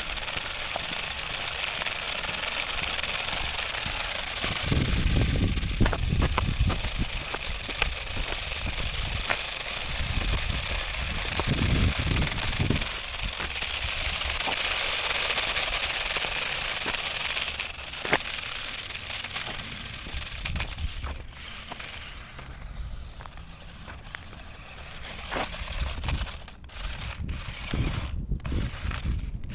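Toy-grade four-wheel-drive RC stunt car with omni wheels driving about: small electric motors and plastic wheels running with a rough, crackling hiss and scattered clicks, swelling and easing as it moves, with low rumbling bursts now and then.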